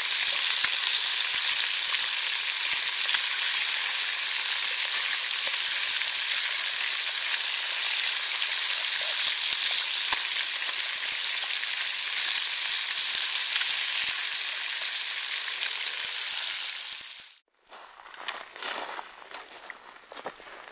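Pike slices sizzling steadily as they fry in a pan over a campfire. About three seconds before the end the sizzle cuts off suddenly, and quieter, irregular footsteps on rocky ground follow.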